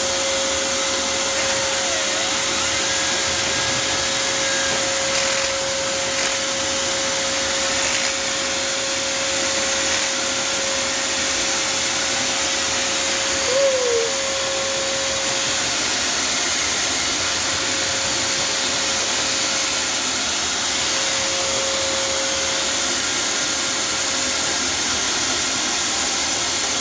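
An electric motor runs steadily with a whine while a dryer vent cleaning brush is worked through a flue. About 14 seconds in, the whine dips briefly in pitch, as if the motor is momentarily loaded.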